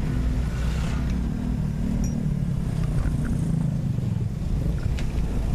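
Low, steady rumble of a vehicle driving along a road, with a few faint ticks near the end.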